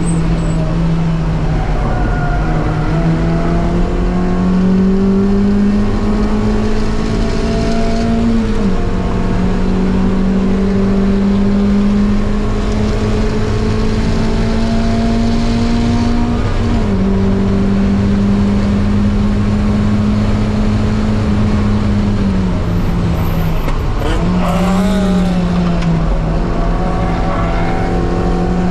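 Mazda MX-5 race car engine running hard on track. Its pitch climbs steadily through each gear, with upshifts about nine and seventeen seconds in. The revs fall around twenty-three seconds in as it slows and shifts down, then build again.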